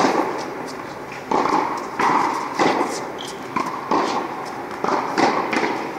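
Tennis ball struck by rackets and bouncing on an indoor hard court, a string of sharp pops roughly every half second to second, each with a short echo off the hall.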